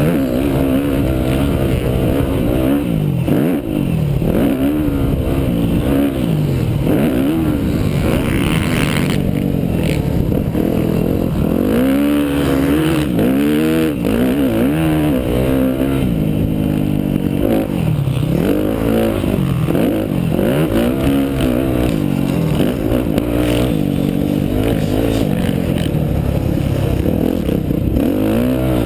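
Dirt bike engine running hard around a motocross track, revving up and down again and again as the rider works the throttle through the laps.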